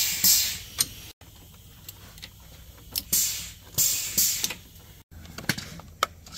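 Hands handling the metal chassis, steering and suspension parts of a side-by-side UTV: short rubbing hisses and light clicks and knocks, several times over.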